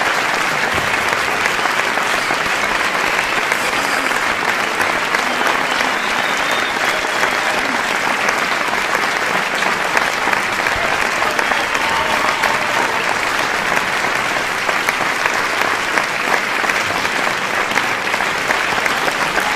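Audience applauding steadily, a dense continuous patter of many hands clapping, with scattered shouts from the crowd.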